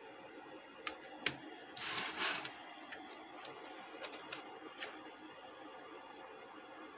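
Small clicks and knocks of multimeter probes and a car stereo being handled on a workbench, with a brief rustle about two seconds in as the unit is moved. A faint short high beep repeats about every two seconds.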